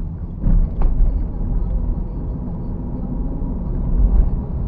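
Steady low road and engine rumble of a moving car, picked up inside the cabin by a dashcam, with a couple of short knocks about half a second in.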